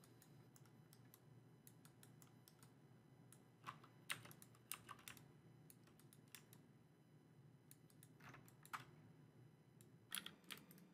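Near silence broken by faint, scattered clicks of a laptop keyboard and mouse being worked, a few at a time and at irregular intervals.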